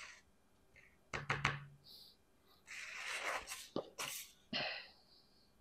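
Folded paper pamphlet being handled and unfolded on a table: a few quick knocks about a second in, then paper rustling and crinkling with a couple of sharp clicks.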